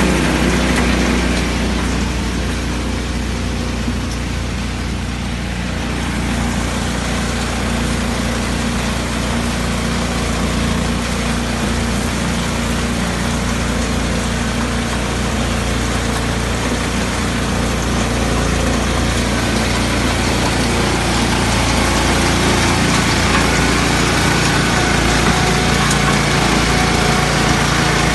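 Small engine of a self-propelled hazelnut harvester with sweeper brushes running steadily, easing off a little for a few seconds and then holding steady.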